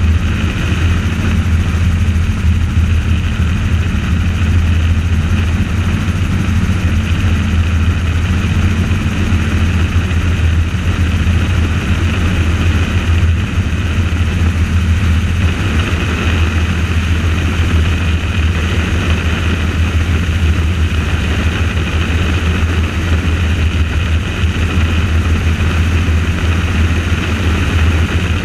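Helicopter in steady flight: rotor and engine running as a continuous loud low drone with a hiss higher up.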